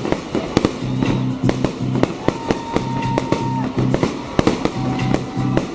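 Fireworks going off in a rapid string of bangs and crackles, with music playing underneath.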